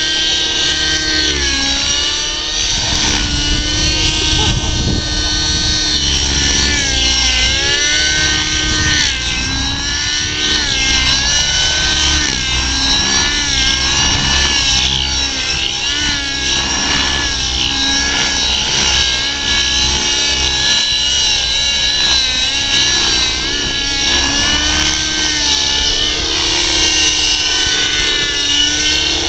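Radio-controlled 3D helicopter flying aerobatics: its whining engine and rotor pitch keeps rising and falling as the machine is thrown through manoeuvres.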